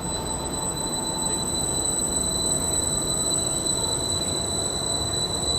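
Train running through the station with a steady high-pitched wheel squeal over the rumble of the wheels.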